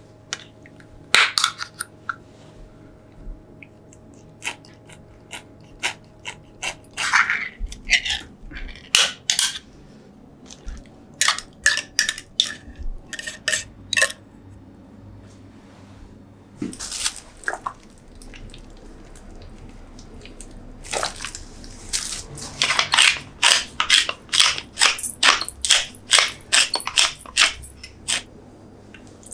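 Chopsticks and utensils clicking and clinking against a stainless steel mixing bowl while ingredients are added and mixed. The clicks come singly and sparsely at first, then in a quick run near the end.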